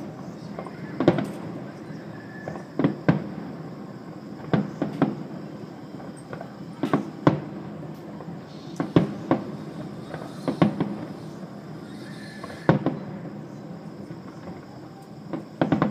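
Fireworks shells bursting at a distance: irregular bangs about every second or two, some in quick pairs or clusters, each trailing off in a short echo.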